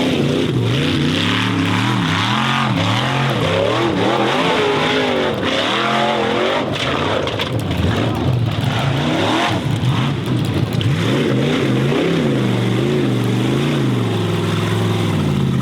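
Formula Offroad racing buggy's engine revving hard and unevenly, its pitch swinging up and down again and again as the throttle is worked. Near the end it comes in quick rises and falls, about two a second.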